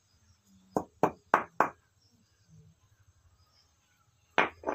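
Sharp chopping knocks from a blade striking food by hand: four quick strikes about a second in, then two more near the end.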